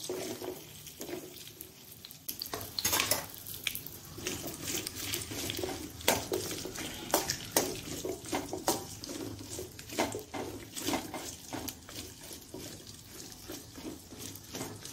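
Cut okra pieces dropping into a stainless steel kadhai, then a steel spoon scraping and clinking against the pan as the okra is stirred in oil, many short sharp clicks and scrapes.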